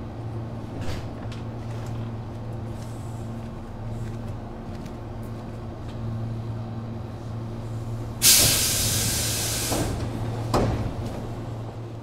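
Tobu 8000 series commuter train car with a steady low hum from its onboard equipment. About eight seconds in, a loud, sudden hiss of compressed air lasts about a second and a half and fades. About two seconds later there is a single sharp thud.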